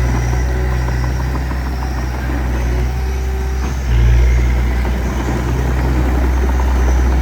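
Diesel engine of heavy earthmoving machinery running steadily, getting louder about four seconds in.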